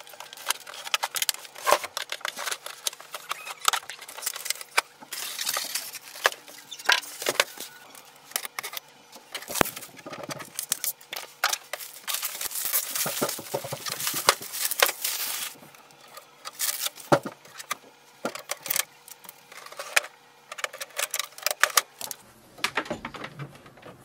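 Packaging being handled as an inkjet printer is unpacked: plastic wrap and cardboard rustling and crinkling, with longer stretches of rustling twice, and scattered clicks and knocks throughout.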